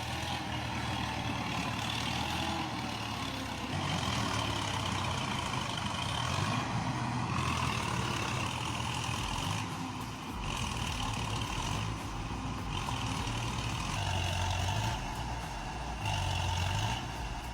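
Logging tractor's engine running under load as it works through deep mud, with the sound changing abruptly several times.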